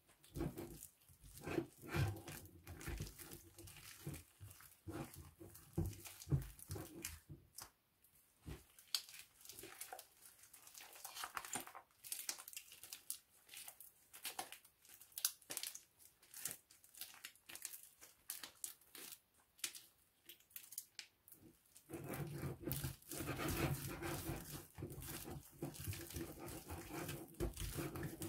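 Sticky black slime made from shoe cream, glue, shaving foam and liquid detergent, stretched, torn and squeezed by hand in a glass bowl, giving many small crackles, snaps and squelches. In the last few seconds a steady low hum joins in.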